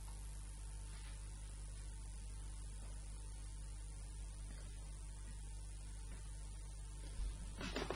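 Steady electrical mains hum over a faint hiss, with a quick run of faint clicks near the end.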